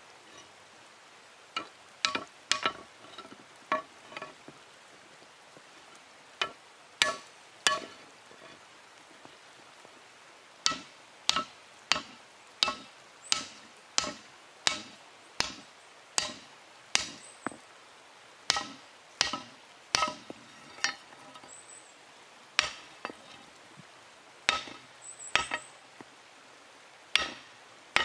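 Hand-held stone hammer striking hot steel on a stone anvil: sharp clinking blows in runs of several strokes about half a second to a second apart, with short pauses between runs.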